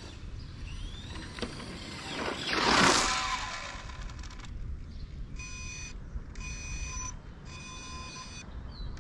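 Electric RC drag car making a pass: a thin rising motor whine in the first second, then a loud rushing sweep about three seconds in as it runs by. From about five seconds a steady high electronic tone sounds in stretches, cutting out three times.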